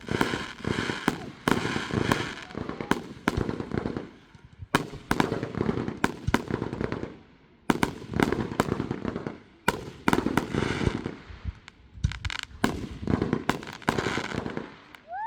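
Fireworks going off in a sustained barrage: rapid strings of sharp cracks and pops in dense clusters, with brief lulls about four, seven and twelve seconds in.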